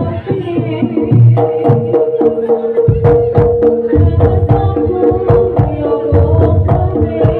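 Live jaranan gamelan music: hand-beaten kendang drums play a busy rhythm over deep gong-like beats and metal-keyed percussion, with a steady held note running through.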